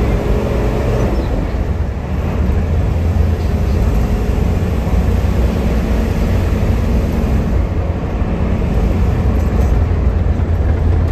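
Hino AK8 diesel bus under way: a steady low engine drone mixed with road noise.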